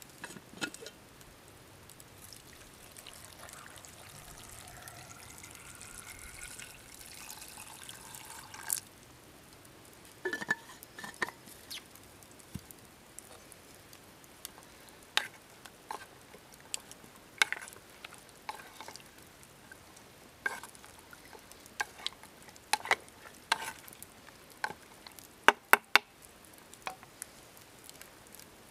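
Water poured from a bottle into an oval steel canteen cup, rising in pitch as the cup fills and stopping abruptly about nine seconds in. After that the campfire crackles with scattered sharp pops.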